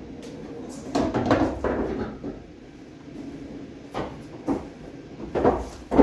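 Scattered clunks and knocks from a bar-box pool table and its balls: a cluster about a second in, then single sharp knocks spaced through the second half, the loudest at the end.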